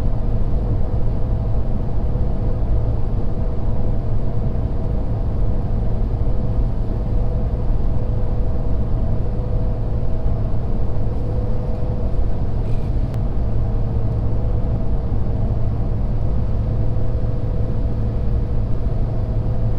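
Steady drone of a 2017 Ford F-250 Power Stroke diesel pickup cruising on the highway: a low engine and road rumble with a faint steady hum above it.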